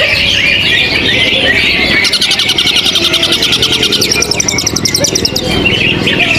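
Several songbirds singing at once in dense, overlapping chirps. A fast, evenly pulsed trill runs from about two seconds in to past the five-second mark.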